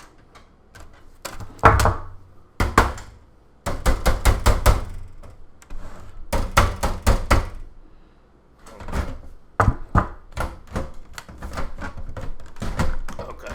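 A hammer banging on computer parts to force them into place: runs of sharp, rapid knocks, several a second, with short pauses between the runs.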